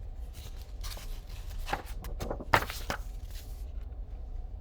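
A picture book's paper page being turned: a run of rustles with a sharp snap about two and a half seconds in, over a steady low hum.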